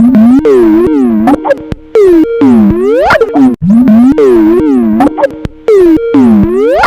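Skype ringtone playing very loud on a loop, warped by heavy editing so that its notes swoop down and back up in pitch over and over.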